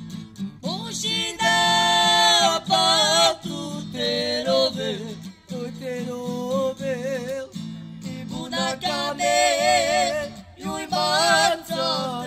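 A male singer performing a song with long, wavering held notes, accompanied by a strummed acoustic guitar.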